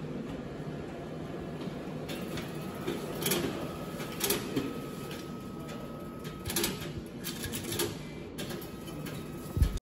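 Indoor background noise: a steady low hum with scattered light clicks and taps and a faint high whine through the middle, then a low thump near the end.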